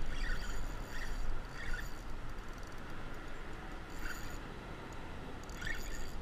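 Short scraping clicks of a spinning reel and rod being handled, about five in all, over a low steady rumble.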